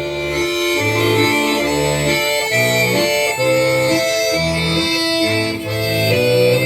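Accordion playing an instrumental song introduction: held chords in the right hand over low bass notes that alternate between two pitches about once a second.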